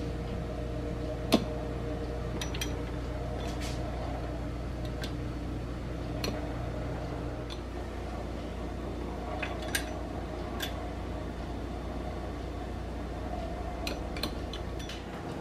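Steel pizza cutter wheel rolling through bread dough, with scattered sharp clicks and taps as the wheel meets the stone countertop, the loudest about a second in. A steady low appliance hum runs underneath, part of it stopping about halfway.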